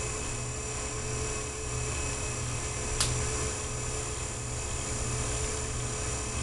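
Steady hum of a small electric motor driving a rotating display turntable, with one sharp click about three seconds in.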